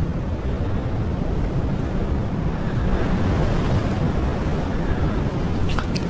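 Steady wind noise rumbling on the microphone, mixed with heavy surf washing against the rocks. A brief high click near the end.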